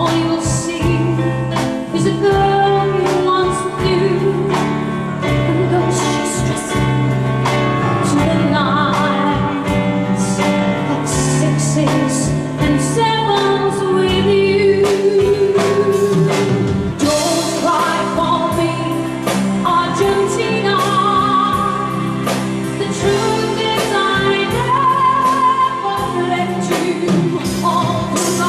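A woman singing into a microphone over a live band, her notes held with vibrato over a steady drum beat.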